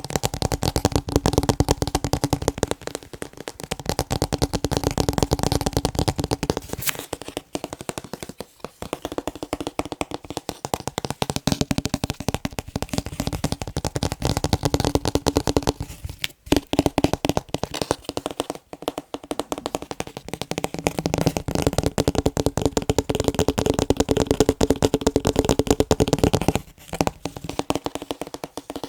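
Fast, dense tapping on picture frames, a rapid stream of small clicks and rattles. It stops briefly a few times and then picks up again.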